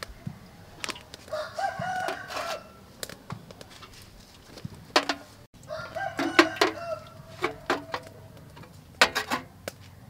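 Small metal cups clinking as they are set down on an aluminium steamer tray, with a bird calling twice in long drawn calls, about a second in and again around six seconds.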